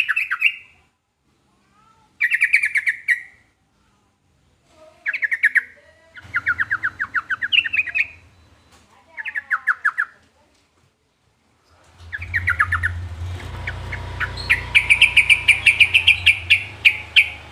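Sooty-headed bulbul (trucukan) singing: short phrases of rapid repeated notes, each about a second long, with pauses between, then a longer rapid run of notes near the end. A low hum sits under the last few seconds.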